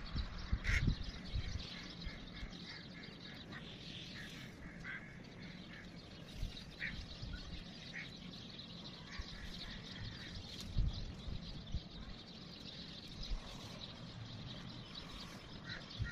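Outdoor background with short bird calls now and then, heard as quacking. A few low thumps stand out, the loudest about a second in and again near eleven seconds.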